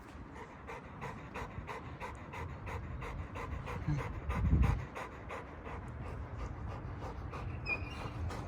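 Large pit bull-type dog panting hard and fast, about four breaths a second, as after exertion. A low thump about four and a half seconds in.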